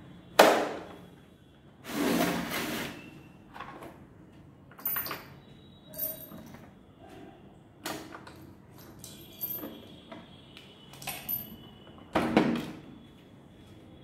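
Handling noises: a series of sharp knocks and clicks, with a brief rustle about two seconds in, as the parts and case of a drill kit are picked up and set down. The loudest knocks come near the start and about twelve seconds in.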